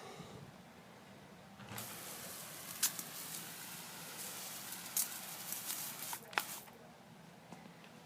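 Water hissing out of an electric pressure washer's wand on house water pressure alone, with no pump running, for about five seconds, with a few sharp clicks. The spray starts and stops suddenly.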